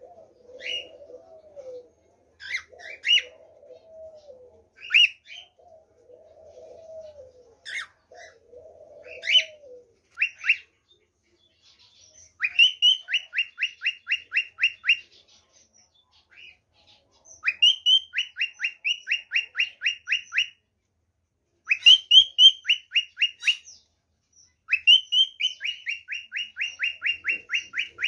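Birds calling and singing: low cooing calls with sharp chirps for the first ten seconds or so, then bouts of fast trills, rows of quick descending notes lasting two to three seconds each, repeated four times.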